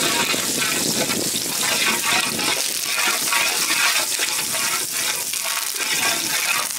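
Hot oil sizzling steadily in a large pan as green chillies and spices fry in it, a dense, loud crackling hiss.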